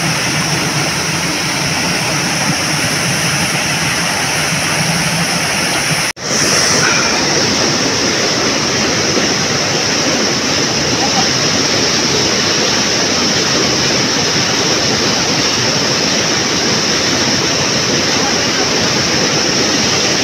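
A stream rushing loudly and steadily, its water noise close to the microphone, broken once about six seconds in by a sudden, split-second dropout where the recording cuts.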